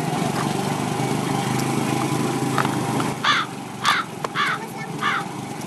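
Motorcycle-tricycle engine running with a steady hum. About three seconds in come four short, harsh, caw-like calls, each about half a second apart.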